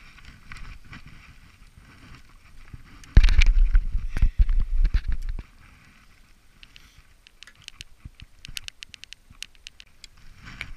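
Loud rumbling and rubbing on a head-worn microphone for about two seconds, then a quick run of light ticks as fishing tackle is handled.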